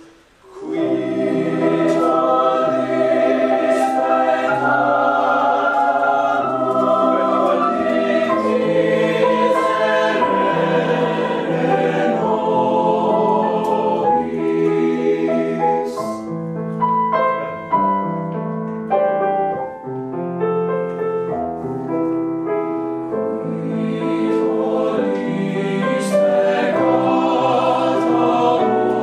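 Choir singing a slow passage in long held chords, coming in about half a second in.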